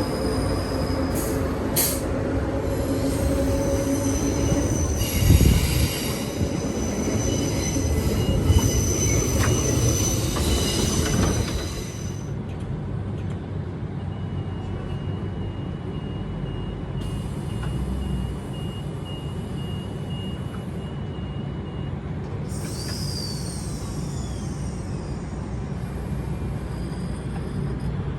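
A train passing, with its wheels squealing on the rails and two heavy clunks a few seconds apart. After about twelve seconds it drops to a quieter rumble, with a faint pulsing high tone and a short falling squeal.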